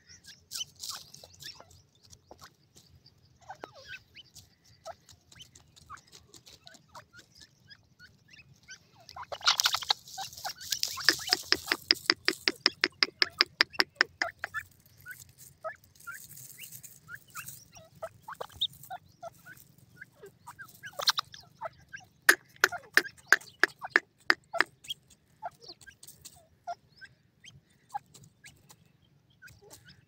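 Grey francolins calling: two bouts of rapid, evenly repeated clucking notes, about seven a second, one about a third of the way in and another about two-thirds through, with scattered single short notes and clicks between.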